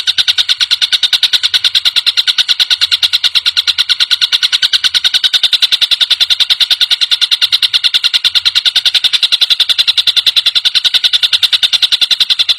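Tengkek buto, a kingfisher, giving a long, loud, rapid chattering trill of evenly repeated notes, about ten a second, held without a break.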